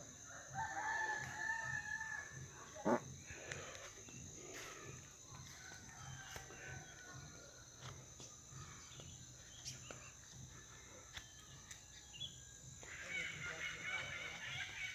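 A rooster crowing, one drawn-out crow of about two seconds near the start, over a steady high insect drone. A single sharp knock comes about three seconds in, and more high calls join near the end.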